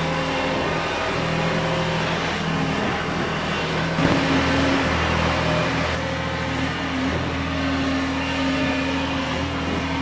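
New Holland L775 skid steer loader's engine running steadily. Its note changes and briefly gets louder about four seconds in.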